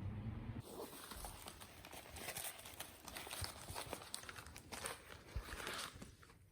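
Close rustling of shopping bags and packaging, with many light clicks and taps as cosmetic products are unpacked and set down.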